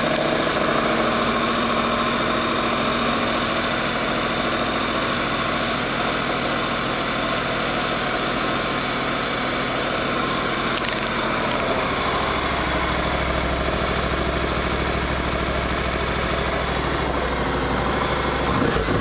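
Honda CTX700's 670 cc parallel-twin engine idling steadily. Its low rumble grows stronger about two-thirds of the way through.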